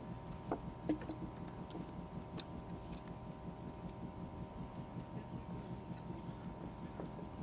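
Steady hum of a boat's engine running, with a few light clicks and knocks in the first three seconds as a sample bottle and the water sampler's drain tube are handled.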